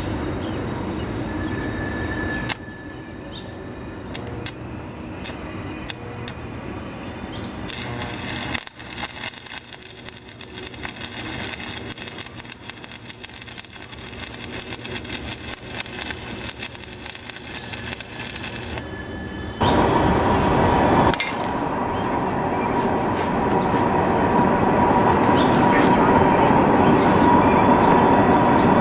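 Electric arc welder welding steel railroad-spike pieces together: a few sharp clicks, then a dense, steady crackling sizzle of the arc for about ten seconds. Near the end a louder steady noise with a constant hum sets in.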